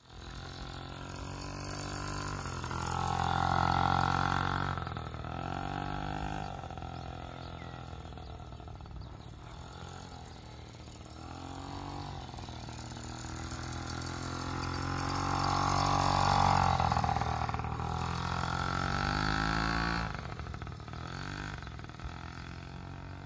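Small children's motocross bike engine, ridden slowly in figure-eights, its pitch rising and falling with the throttle. It grows louder twice, about four seconds in and again about sixteen seconds in.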